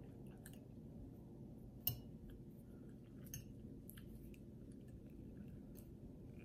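Quiet chewing with scattered small clicks of a fork on a plate, the sharpest click about two seconds in, over a low steady hum.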